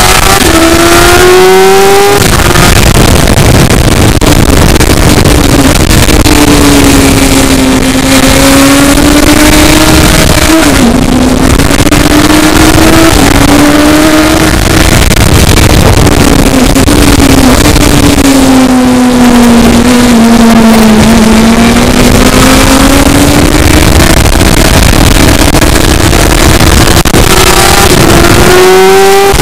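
Car engine running hard at speed, its pitch rising and falling with the throttle over a loud, steady rush of noise, with quick climbs in pitch near the start and the end.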